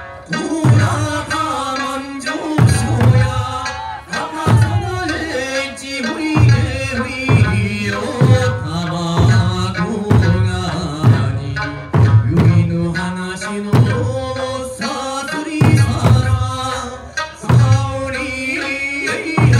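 Eisa drumming: a troupe striking large barrel drums (ōdaiko) and smaller hand-held drums in unison, with a deep boom about every two seconds, over singing of a folk song.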